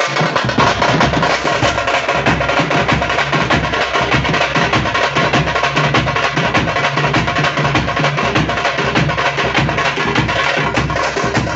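A group of tamte (tamate) frame drums played together in a fast, dense, steady rhythm, with a recurring deep beat underneath.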